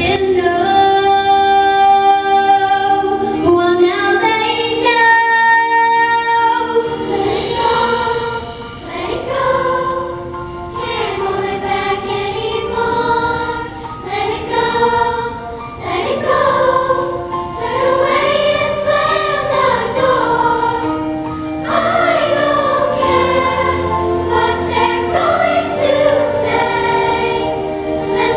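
Children's choir singing a pop ballad. A girl soloist sings alone into a microphone for the first several seconds, then the full choir comes in.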